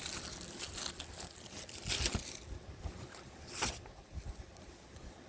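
Plastic packaging crinkling and rustling as a Blu-ray steelbook is handled and opened, with two louder crinkles about two seconds in and again past three and a half seconds.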